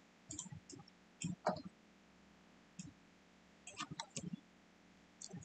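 Faint, scattered clicks of a computer mouse and keyboard keys, about nine in all, some in quick twos and threes, with near silence between them.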